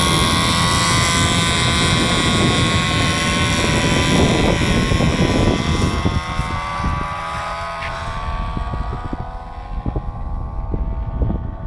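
Small propeller engine of a homemade radio-controlled drone aircraft running steadily in flight, a droning whine that grows fainter from about halfway through as the plane flies away.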